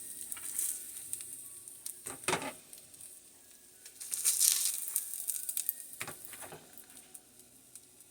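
Food sizzling as it fries in a pan, a high hiss that swells about four seconds in and then dies down, with a couple of short knocks.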